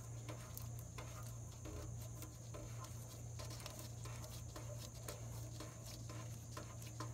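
Faint, irregular ticks and scrapes of a gloved hand turning the loosened oil drain plug out of a 1996 Ford F-150's oil pan by finger, over a steady low hum.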